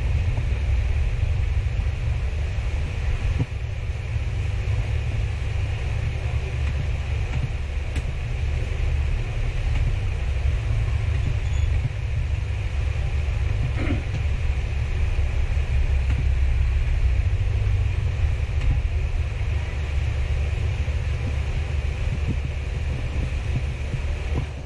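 Steady low rumble of background noise, with a few faint clicks over it.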